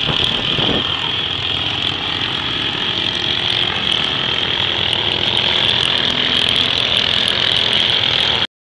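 Racing kart engines running at high revs around the track, a steady high-pitched buzz with a low rumble beneath. The sound cuts off abruptly near the end.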